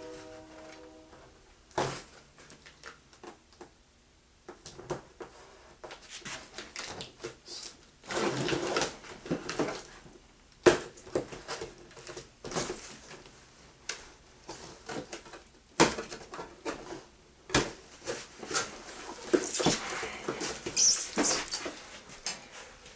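A cardboard shipping box being cut open and unpacked: the tape slit, then irregular scratching, tapping and rustling of cardboard and packing material, with a louder stretch of crinkling near the end.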